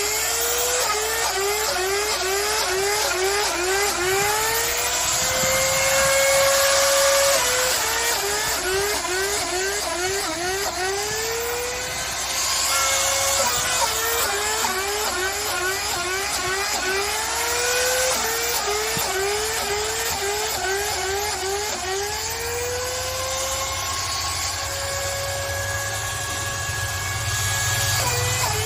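Power drill boring spawn holes into oak logs. The motor's pitch wavers rapidly, about two to three times a second, as the bit bites into the wood. Several times it rises to a steadier, higher whine as the drill runs free, then drops back under load.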